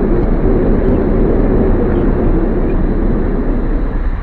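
A car driving along: a steady rumble of road and wind noise heard from inside the car.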